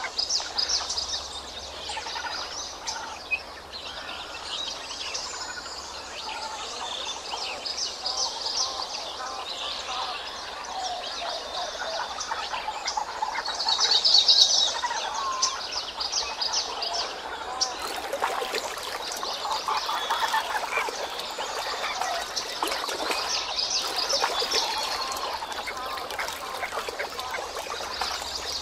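Many birds chirping and calling, with a loud cluster of chirps about 14 seconds in. From about 18 seconds a steady rushing hiss joins the calls.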